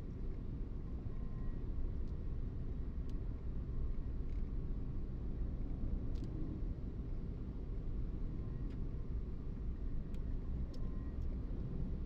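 Steady low rumble of tyre and engine noise inside a moving car's cabin, with a few faint ticks scattered through it.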